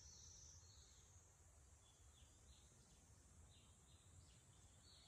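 Near silence in a forest: faint small bird chirps, short falling notes repeating irregularly, over a steady high hiss.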